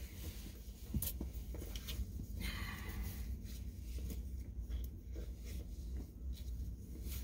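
Soft rustling, scraping and small clicks of nylon straps and plastic hooks being handled and adjusted around a car seat headrest, with a sharper click about a second in and a brief scratchy swish a little later, over a low steady hum.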